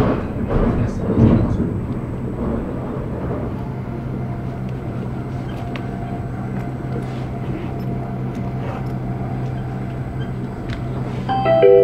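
Inside a Stockholm commuter train running between stations: a steady low hum with rail noise. Near the end a short chime of several tones sounds, the signal for the onboard next-stop announcement.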